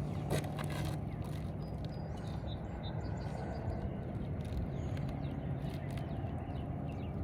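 Outdoor background: a steady low machine-like hum, with faint bird chirps over it. A few light clicks come in the first second.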